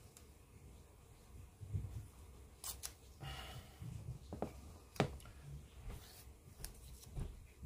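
Masking tape pulled off its roll with a brief ripping sound about three seconds in, then the tape roll set down on a plastic cutting mat with a sharp knock, among small handling clicks.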